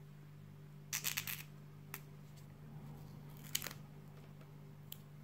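A stiff adhesive paper cutout crinkling briefly about a second in as it is handled and pressed onto a small vinyl figure, followed by a few small clicks, over a steady low electrical hum.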